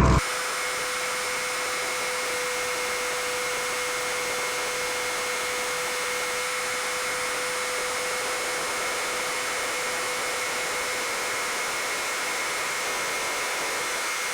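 Steady fan-like hiss with faint constant whining tones and no engine rumble underneath, holding an even level throughout after starting abruptly just after the beginning.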